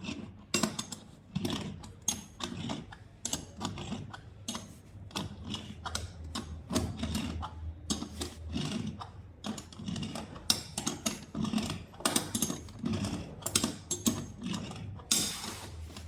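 Power screwdriver tightening the screw of the band clamp that holds a pool light's lens and face ring, with many irregular clicks and knocks over a low motor hum.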